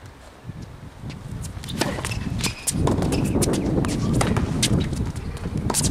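Tennis rally on a hard court: sharp clicks of racket strikes and shoe scuffs and footsteps on the court, over a low rumble that grows louder about two seconds in.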